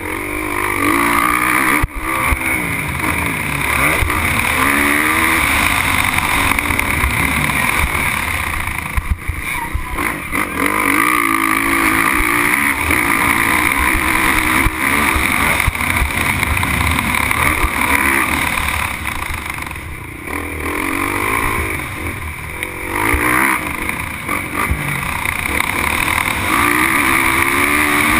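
Motocross bike engine under race throttle from an onboard camera, revving up and falling away over and over as the rider shifts gears. The throttle is shut briefly a few times. Wind and rushing noise on the microphone run underneath.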